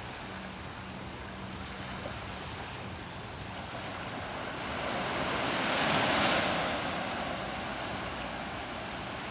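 Ocean surf on a beach: a steady wash of water, with one wave breaking that swells about five seconds in, peaks near six seconds and then fades.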